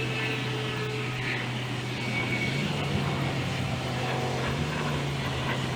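Bryant heat pump outdoor unit running with a steady low hum over a whooshing noise.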